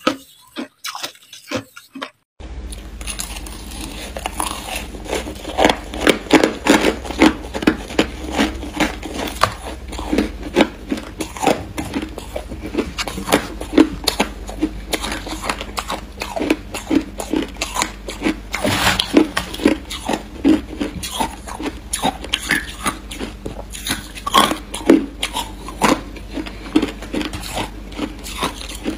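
Crushed ice being bitten and crunched between the teeth close to the microphone, with many sharp, irregular crunches, several a second, as it is chewed.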